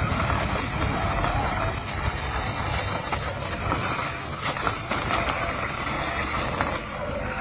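Radio-controlled toy car driving over stone paving slabs: its small plastic wheels and electric motor rattling and whirring steadily, over a continuous noisy rush with a few light clicks.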